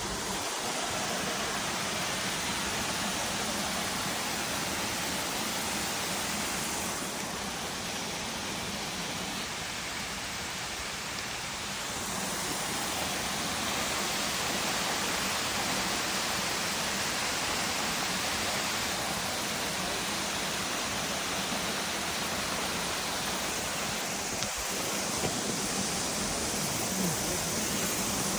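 Waterfall: falling water rushing in a steady, even noise that gets a little louder about twelve seconds in.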